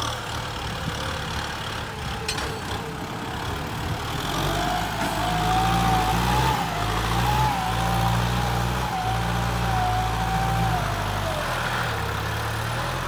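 Kubota M6240 SUH tractor's four-cylinder turbo diesel working under load as it pushes soil with its front blade and drags a disc harrow. About four seconds in the engine grows louder, and a wavering whine sits over it until shortly before the end.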